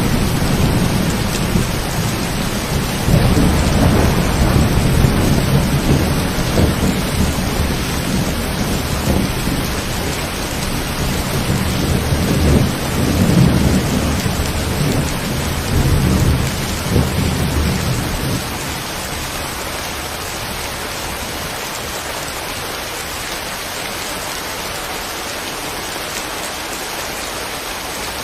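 Steady rain falling, with rolling thunder rumbling underneath in several swells; the thunder stops abruptly about two-thirds of the way through, leaving only the even hiss of rain.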